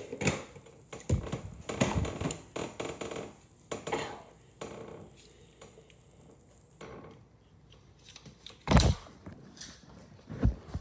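Clicks and light clattering of small hard items being handled, with a loud thump near the end from the phone being picked up and handled.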